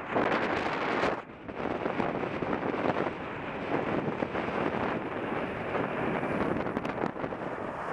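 Wind rushing over the microphone of a camera mounted on a moving bicycle, mixed with road traffic noise. It drops briefly a little after a second in.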